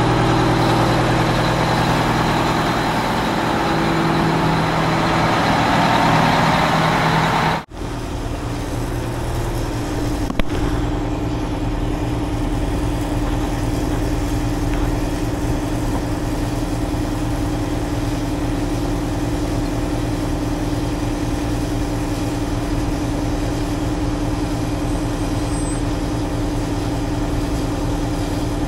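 Heavy diesel engine running steadily. About eight seconds in the sound breaks off sharply and goes on as a steadier, slightly quieter engine note, with a single sharp click a couple of seconds later.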